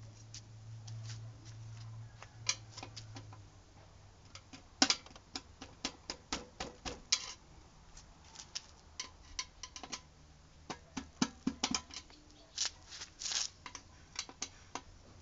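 Irregular clicks and knocks of hands handling the parts of a scooter's open frame, thicker from about four and a half seconds in, with a low hum in the first few seconds.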